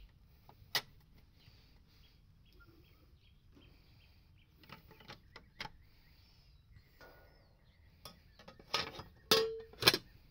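Clicks and knocks from an outdoor air-conditioner disconnect box being closed up. A sharp click comes early and a few light clicks as the inner cover is pushed back into place. Near the end come louder snaps and knocks, one briefly ringing, as the hinged lid is shut.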